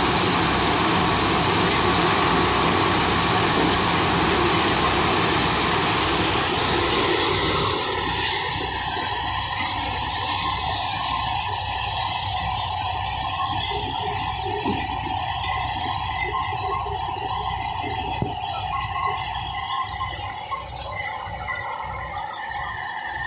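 A tractor-driven maize sheller running, a loud steady mechanical din of the drum shelling corn with a low, even pulsing beneath it. The dense rattle thins out after about eight seconds, with a few louder clatters later on.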